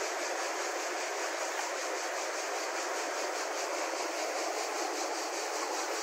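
Steady rush of the Adige River flowing fast over its shallow, rocky bed.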